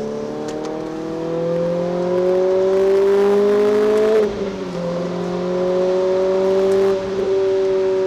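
Renault Clio RS 200's four-cylinder engine pulling hard under acceleration, heard from the cabin, its pitch rising steadily. There is an upshift about four seconds in, then it pulls again in the next gear, with a brief dip in pitch about seven seconds in.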